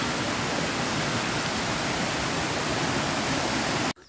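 Steady rush of flowing water, an even hiss without pattern, that cuts off suddenly near the end.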